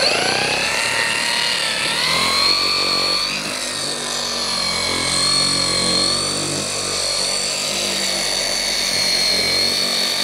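Small cordless dual-action polisher with a 12 mm orbit and a 3-inch foam pad, run at its lowest speed while working compound into piano black trim. It is a steady motor whine that starts up at the beginning and dips briefly in pitch about two seconds in before settling.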